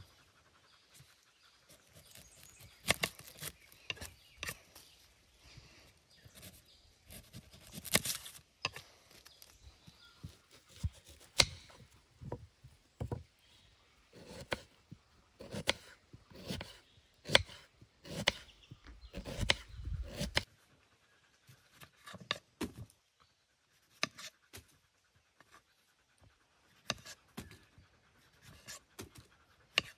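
Kitchen knife cutting a red onion on a wooden chopping board: separate crisp cuts and knocks of the blade on the wood, then a fast run of slicing strokes in the middle. Near the end come lighter cuts through small tomatoes.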